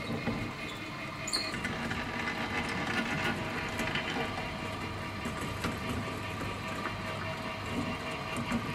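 Kinetic sculpture running: a red cast-iron wheel turning a ring faced with sponge and green scouring pad, which rolls on white nylon rollers. It makes a steady scratchy rubbing and rolling whir, with a constant mechanical hum underneath.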